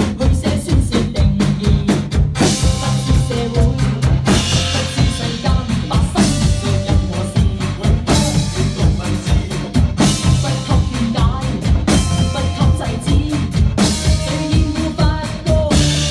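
Drum kit played along with a backing track of a classic pop song: a steady kick-and-snare beat over a bass line, with cymbal washes coming in about every two seconds.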